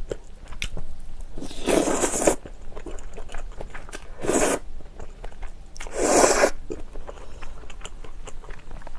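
Spaghetti in cream sauce slurped into the mouth three times, each slurp under a second long, with soft chewing and small clicks in between.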